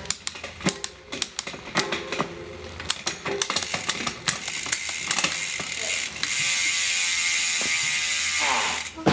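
Rapid ratchet-like mechanical clicking from bicycle assembly work. About six seconds in it gives way to a steady whirring buzz that winds down in pitch and stops near the end.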